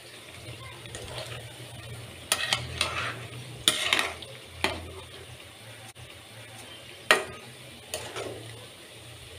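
Chana dal masala vadas deep-frying in hot oil in a kadai, the oil sizzling and bubbling steadily. A metal ladle turns them, knocking and scraping against the pan in a cluster of strikes from about two to five seconds in and twice more later on.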